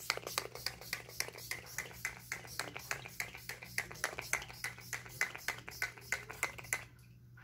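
Makeup setting spray being pumped in rapid spritzes, several short hissing bursts a second, stopping shortly before the end.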